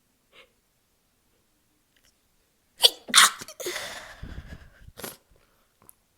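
A person sneezing loudly: two sharp bursts in quick succession about three seconds in. About a second of noisy breath follows, then another short burst.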